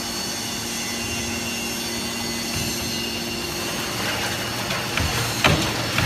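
Hydraulic baler's electric motor and pump running with a steady hum. About four seconds in the sound deepens, and a few sharp knocks follow near the end.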